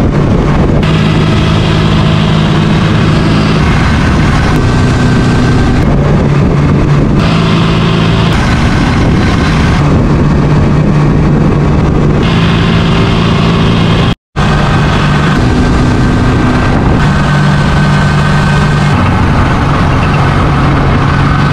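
Suzuki GS750's air-cooled inline-four engine running under way while the motorcycle is ridden, its note stepping up and down several times with throttle and gear changes.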